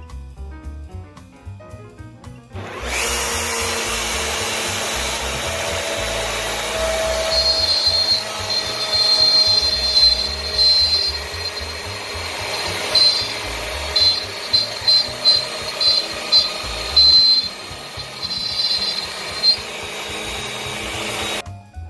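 CNC router spindle running at 18,000 rpm with an end mill cutting slots into wood at a 50 ipm feed. It starts abruptly about two and a half seconds in. A shrill whine comes and goes in short pulses through the middle of the cut, and the sound stops suddenly near the end. Jazz music plays for the first couple of seconds.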